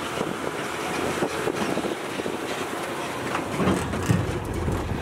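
Open-sided zoo road train running along a paved road: steady engine and rolling noise with scattered light rattles.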